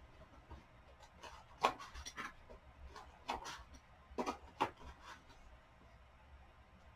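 Faint rustling and soft taps of paper as the pages and paper inserts of a book are handled: a handful of brief sounds, most of them between about one and a half and five seconds in.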